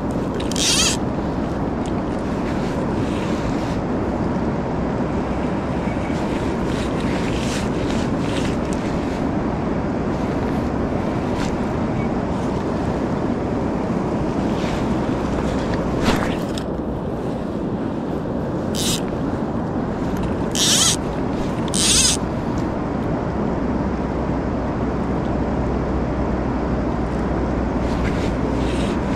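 Steady rush of a fast-flowing river mixed with wind buffeting the microphone, with a few short rustles, most of them about two-thirds of the way in.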